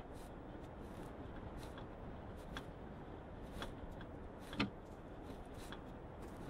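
A wheel wrench working on a car's wheel nuts: scattered light metallic clicks about once a second, with one sharper knock about four and a half seconds in, over a steady hiss of outdoor background noise.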